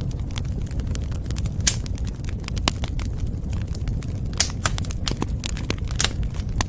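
Wood fire crackling: many sharp pops and snaps at irregular intervals over a steady low rumble of burning, with a few louder pops.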